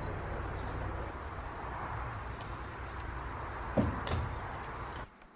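Two sharp knocks about a third of a second apart, about four seconds in, from work on a wooden barn roof, over a steady outdoor rush with a low hum.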